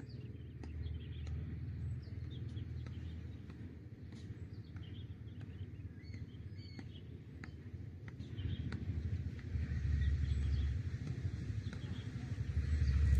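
Scattered bird chirps over a steady low rumble that swells in the last few seconds.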